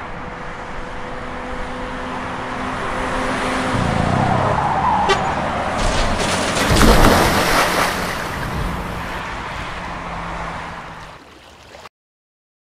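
Car driving past, its engine hum and road noise swelling to its loudest about seven seconds in and then fading. The sound cuts off abruptly near the end.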